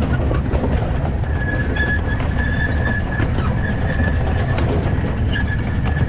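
Miniature steam train's cars running along the track: a steady rumble and clatter of wheels on rail, with a thin high squeal that comes and goes.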